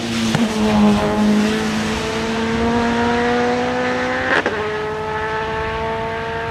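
A Nissan Primera BTCC Super Touring car's 2.0-litre naturally aspirated SR20DE four-cylinder, on individual throttle bodies, accelerating hard past and away with a loud intake note. The revs climb steadily for about four seconds, a quick upshift cuts in, then the revs climb again.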